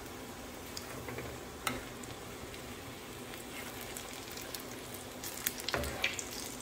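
Egg-and-breadcrumb-coated chicken kababs shallow-frying in hot oil in a pan, a steady sizzle with scattered crackling pops. Near the end a metal spatula knocks a few times against the pan as the kababs are turned.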